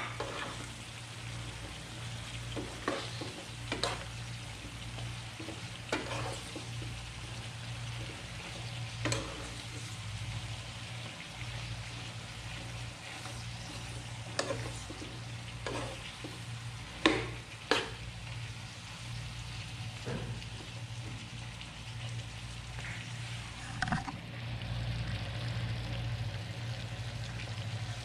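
Chicken and potato cubes sizzling in a frying pan, stirred with a metal spoon that scrapes and clinks against the pan about a dozen times, loudest a little past halfway.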